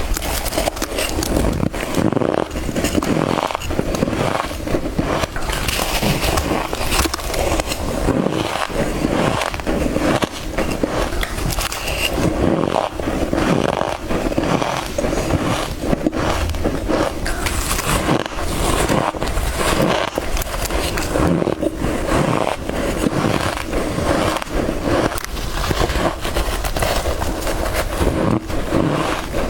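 Soft freezer frost being bitten and crunched, a dense unbroken run of crisp crunches.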